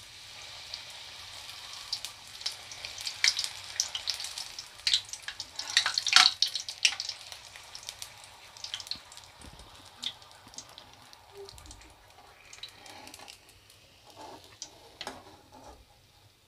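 A maida puri deep-frying in hot oil in an aluminium kadai, the flame turned low. The oil sizzles with a hiss and many sharp crackles and pops, busiest a few seconds in and thinning out over the second half.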